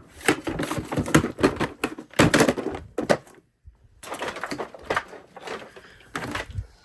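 A run of knocks, bumps and clatter from things being handled and moved about. There is a brief dead silence a little past the middle.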